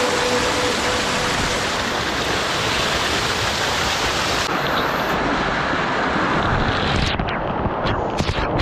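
Steady roar of a waterfall in a mountain stream gorge. Irregular knocks and buffeting on the microphone come in during the last second or so.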